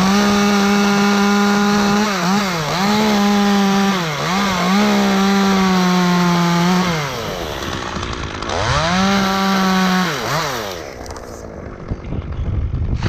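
Chainsaw held at full throttle cutting through dead oak wood. Its steady high whine sags in pitch twice as the chain loads up in the cut. It drops back about seven seconds in, revs up again for another short burst, then is let off. A sharp knock comes near the end.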